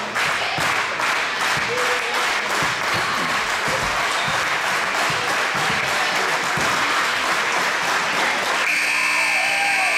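Basketball crowd in a gymnasium clapping and cheering throughout. About nine seconds in, a steady electronic horn starts sounding over the crowd, typical of a scoreboard buzzer.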